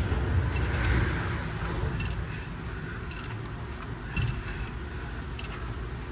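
Ford 3.5L EcoBoost engine, timing cover off, being turned over by hand with a wrench on the crankshaft bolt, so the timing chains and cam phasers rotate; light metallic clicks come about once a second over low handling noise.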